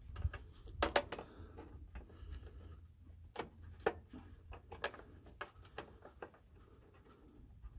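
Scattered light clicks and rattles of two control cables and their metal clamp being pressed and squeezed together by hand on the engine, over a faint low rumble.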